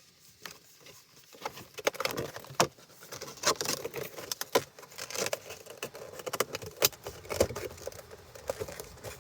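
Cardboard box and packaging being handled: irregular rustling, scraping and small clicks, starting about a second and a half in.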